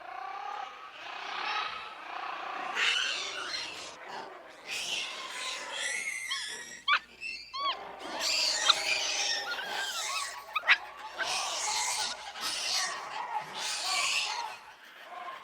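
Monkeys calling: a string of wavering squeals, with a cluster of short, high chirping squeaks in the middle.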